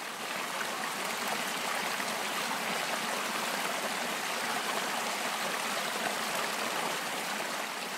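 Shallow trout-creek riffle: water running over rocks in a steady rush, beginning to fade out near the end.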